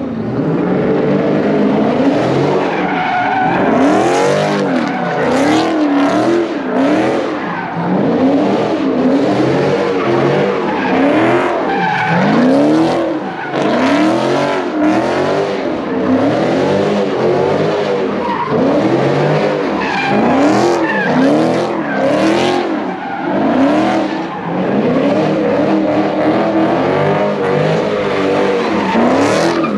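Dodge Challenger spinning donuts with tyres screeching: the engine is held at high revs and its pitch rises and falls over and over as the car circles.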